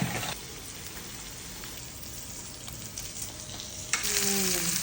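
Beef sizzling on a hot Korean barbecue grill: a steady frying hiss that grows louder and brighter about four seconds in.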